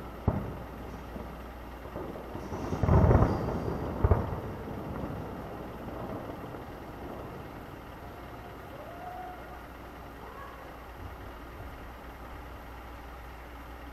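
Distant fireworks shells bursting: a long rolling boom about three seconds in and a sharper bang about a second later, over a steady low rumble.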